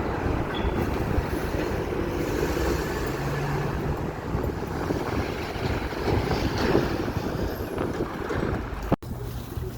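Strong wind buffeting the microphone, a rough steady rush heavy in the low end, with a brief dropout about nine seconds in.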